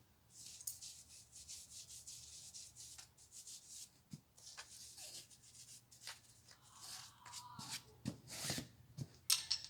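A climber's hands and body rubbing and scuffing against the boulder. There are repeated short rubbing strokes for the first few seconds, then scattered scrapes and a few sharp knocks, the loudest about nine seconds in.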